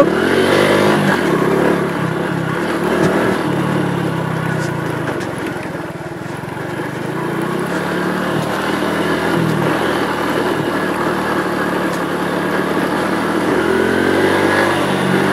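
Honda Pop 110i's small single-cylinder four-stroke engine running while the bike is ridden on a dirt track. The engine eases off around six seconds in, then climbs steadily in level toward the end.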